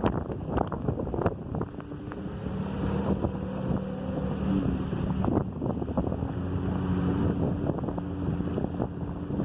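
Jeep engine running at low, shifting revs, with scattered knocks and rattles and wind noise on the microphone.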